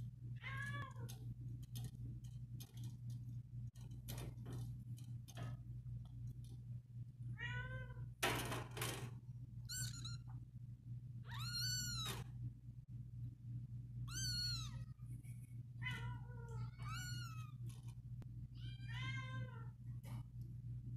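Tabby kitten mewing repeatedly: about ten short, high-pitched mews, each rising then falling in pitch, over a steady low hum. There is a brief burst of noise about eight seconds in.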